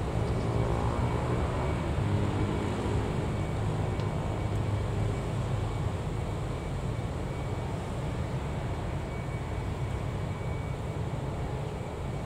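Motor scooters passing close by one after another, their small engines running, over a steady hum of street traffic. One engine is loudest in the first few seconds as it goes past.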